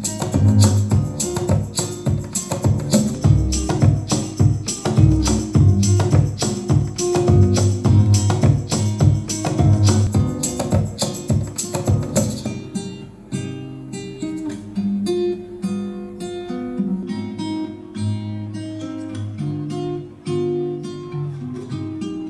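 Music sound-test track with strummed acoustic guitar over a steady percussive beat, played through a DIY audio amplifier board. About twelve seconds in, the beat drops out and the top treble disappears, leaving plucked guitar notes.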